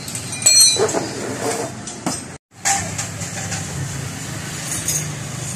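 A few clicks and knocks of hand work on the motorcycle. Then, from about two and a half seconds in, the Yamaha Sniper 150's single-cylinder four-stroke engine idles steadily, with no knocking from the clutch now that the new clutch damper and lining are fitted.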